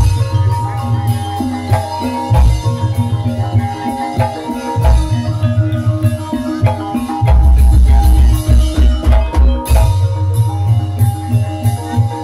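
Ebeg dance accompaniment: an ensemble of struck tuned bars plays short repeating melodic notes over heavy, rhythmic drumming.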